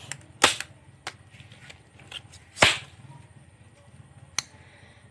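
Disposable examination glove being peeled off a hand: two sharp snaps of the rubber, about two seconds apart, with a few fainter clicks and rustles between.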